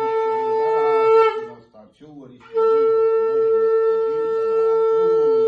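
Conch shell (shankha) blown in two steady, unwavering blasts on one note: a short blast of just over a second, a pause of about a second, then a longer held blast.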